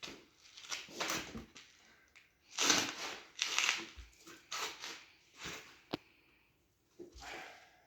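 Irregular rubbing and crunching bursts as a foam mousse bib is forced into a dirt-bike tire by hand.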